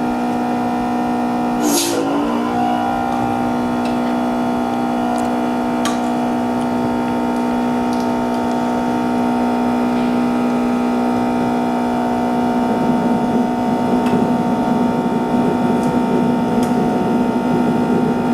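Steady machine hum with several fixed pitches. About two-thirds of the way through it turns rougher and more fluttering, and there is a short scraping noise about two seconds in.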